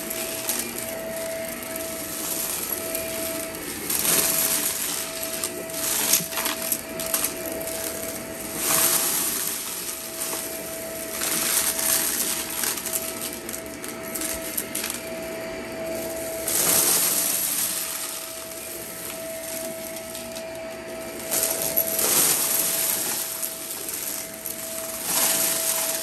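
Shark upright vacuum cleaner running over carpet, its motor holding a steady whine, with loud surges every few seconds as it sucks up scattered bits of debris.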